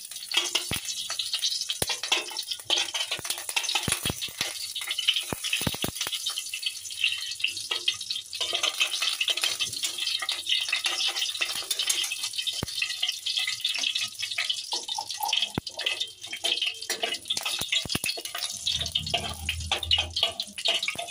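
Ghee and leftover oil sizzling in a hot kadai after the onions were fried, a steady crackling hiss with scattered sharp pops.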